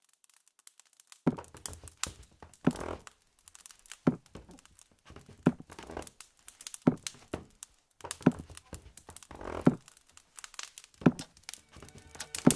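A steady series of heavy thuds, one about every second and a half after a second of near silence, with crinkling and rustling between them.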